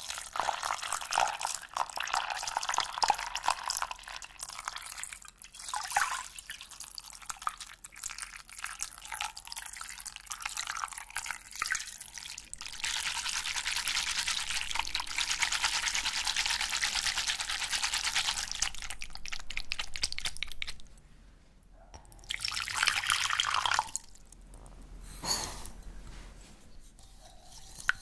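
Water poured and running over cooked tapioca pearls in a wire-mesh strainer over a glass bowl, with dripping and trickling as the rinsed pearls drain. A steady stream runs for several seconds midway, then breaks off.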